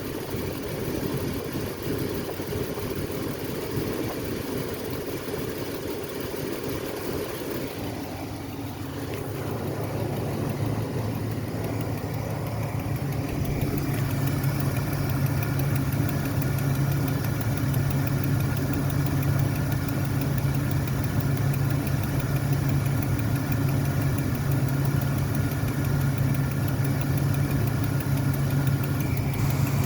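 Car engine idling with an unexplained clicking noise. About eight seconds in the sound grows louder, and from about thirteen seconds it settles into a steadier, stronger hum.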